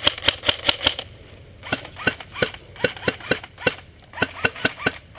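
Airsoft rifle firing: a fast string of shots at about six a second, then after a short pause a run of slower single shots, a little quicker again near the end.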